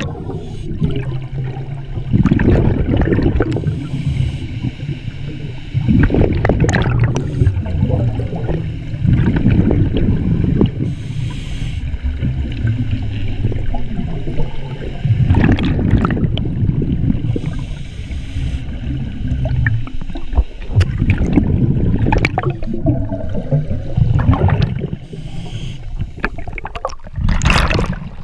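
Scuba regulator breathing heard underwater: bursts of exhaled bubbles rumbling past every few seconds, with fainter hissing between them.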